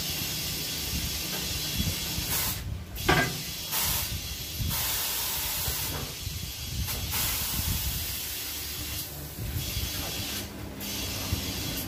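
Compressed air hissing in repeated bursts of about a second each at a tire changer, over a steady low rumble.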